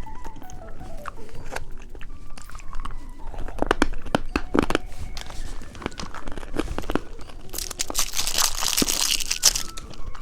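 Candy being bitten and chewed close to the microphone: a run of sharp crunches, with a denser, louder crackling stretch near the end. Faint background music underneath.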